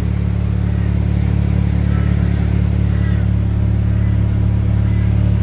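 Mazda RX-8's 6-port Renesis two-rotor rotary engine idling steadily, warmed up after about 20 minutes of running. It is the engine of a car being checked for a misfire.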